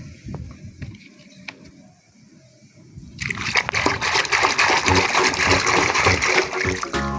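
Water spraying and splashing, starting suddenly about three seconds in after a few faint clicks.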